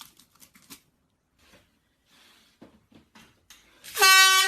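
A few faint clicks and rustles, then near the end a loud, steady blast from a handheld air horn.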